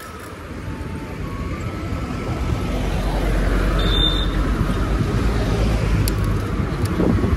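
Road traffic noise with wind rumbling on the microphone of a moving bicycle, growing louder over the first three seconds and easing off near the end. A short high tone sounds once about four seconds in.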